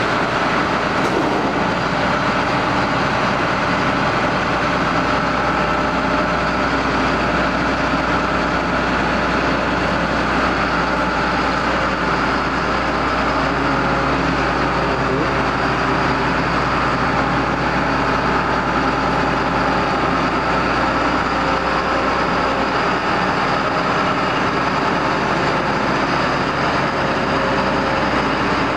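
John Deere 9600 combine running steadily at harvest: its diesel engine and threshing machinery make one continuous drone with steady tones, holding an even level throughout.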